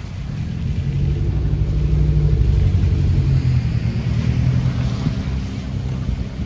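A motor vehicle's engine going by close at hand: a low, steady hum that grows louder over the first two seconds or so, holds, then eases off near the end.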